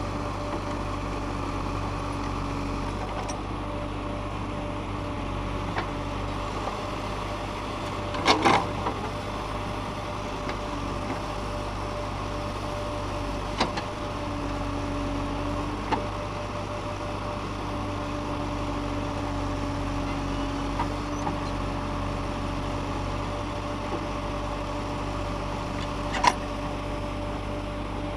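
JCB 3DX backhoe loader's diesel engine running steadily, with a few sharp knocks now and then, the loudest about eight seconds in.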